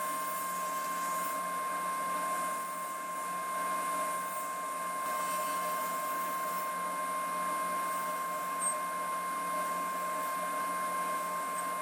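Table saw running with a steady whine while a pine board is passed over the tilted blade to cut dovetail notches.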